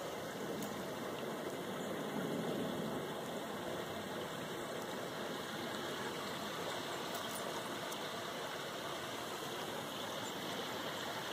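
Steady rushing outdoor background noise with no distinct events, only a couple of faint ticks.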